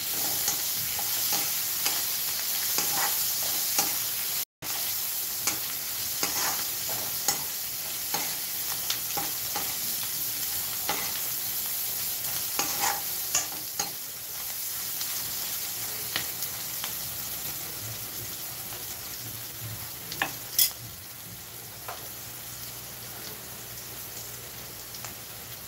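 Bitter gourd slices sizzling in hot oil in a metal kadai, with a metal spatula scraping and clicking against the pan as they are stirred. The stirring clicks thin out about halfway through and the sizzle becomes a little quieter.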